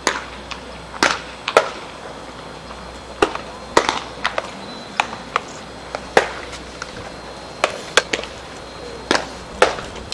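Sharp pops of baseballs smacking into leather gloves as several players play catch, about a dozen irregular catches, some coming close together in pairs.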